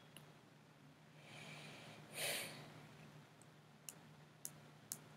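Quiet room with a steady low hum. About a second in, a person takes one breath through the nose, lasting about a second and a half, followed by three short, faint clicks near the end.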